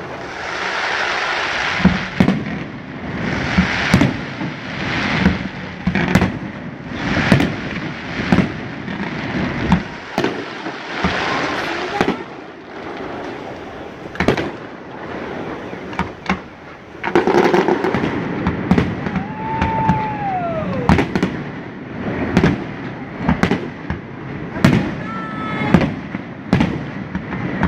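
Aerial firework shells bursting: a sharp bang every second or so over a steady bed of crackle and hiss. A falling whistle comes about two-thirds of the way through.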